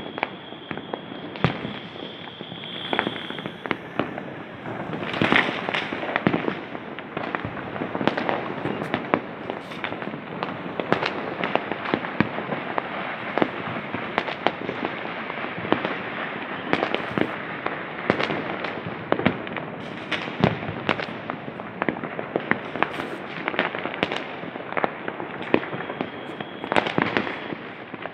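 Many firecrackers and aerial fireworks going off at once across a wide area: a dense, continuous crackle with frequent sharp bangs overlapping, and a high steady whistle for the first three seconds or so.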